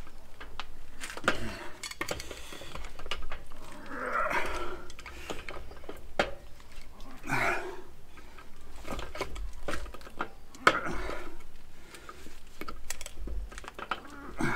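Irregular metal clinks and knocks of motorcycle exhaust parts being handled and fitted by hand, with one sharper knock a little past the middle.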